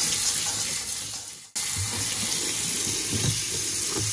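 Cold tap water running onto blanched green beans in a stainless steel colander in a sink, rinsing them to stop the cooking. The flow cuts out abruptly about a second and a half in and resumes straight away.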